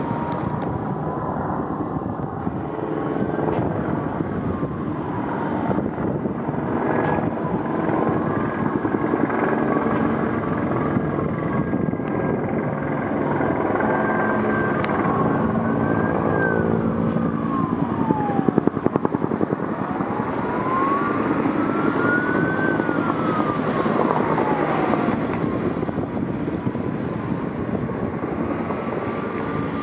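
Bell 214B firefighting helicopter flying overhead, its rotor and turbine running steadily. A fire-truck siren wails slowly up and down behind it several times.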